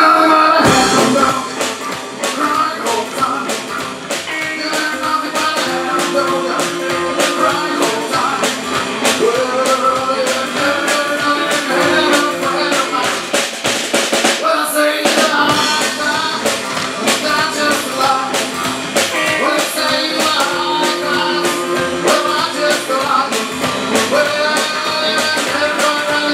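Live rock and roll band playing: electric guitar over a drum kit keeping a steady beat, with singing at times.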